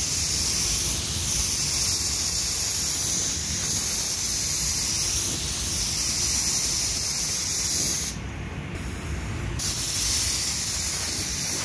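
Gravity-feed spray gun hissing steadily as it lays down clear coat. The hiss drops off briefly about eight seconds in, then resumes.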